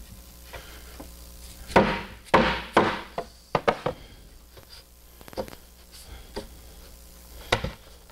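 Orange dead blow hammer knocking a cross piece into place in a plywood cabinet box: three heavy thuds about two seconds in, then lighter knocks and taps spaced through the rest.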